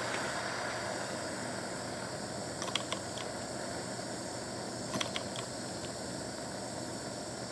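Butane jet torch burning with a steady hiss, its flame played on the hot end of a miniature Stirling engine to get it to start. A few light clicks come in two small clusters, about two and a half seconds in and again about five seconds in.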